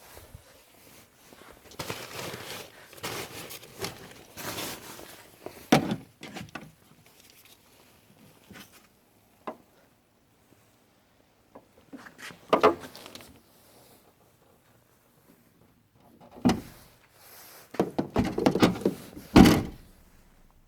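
Ford Focus hatchback's fiberboard parcel shelf being handled in the boot: rustling and scraping with several sharp knocks and thunks, the loudest near the middle and towards the end.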